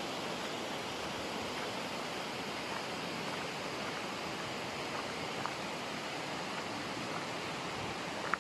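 Steady rushing of the Radovna river's fast water through the gorge, an even, unbroken roar, with a couple of faint clicks near the middle and just before the end.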